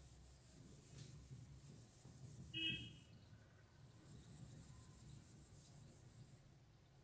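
Cloth duster wiping marker off a whiteboard: faint, steady rubbing, with a brief high squeak about two and a half seconds in.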